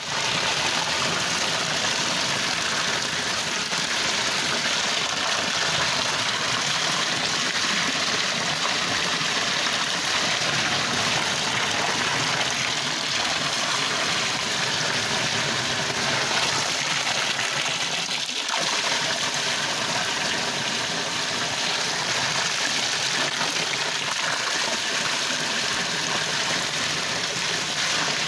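Water pouring steadily over a small backyard waterfall, an even, unbroken rush.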